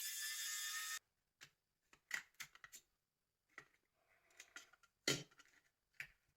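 A steady hiss that cuts off sharply about a second in, then a scattering of small clicks and taps: plastic and metal parts of a Nokia 7650 being handled and pried during disassembly.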